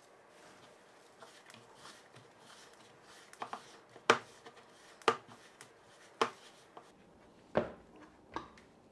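Hands kneading a soft, oily dough of flour, olive oil and wine in a bowl. At first only faint rubbing is heard, then from about three seconds in come sharp thumps, roughly one a second, as the dough is pressed and knocked against the bowl.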